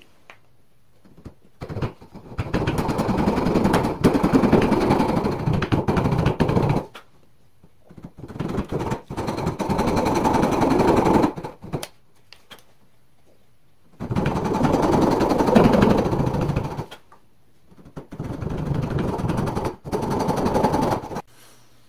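Thin-bladed Japanese-style handsaw rip-cutting down into the end grain of a board, a fast run of sawing strokes. It comes in four bouts of a few seconds each, with short pauses between them as the saw is lifted and repositioned for the next kerf.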